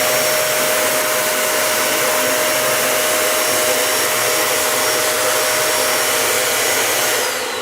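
Dyson Animal 3 vacuum cleaner running on its higher carpet setting: a loud, steady rushing whir with a constant whine. Near the end the motor winds down, its whine falling in pitch.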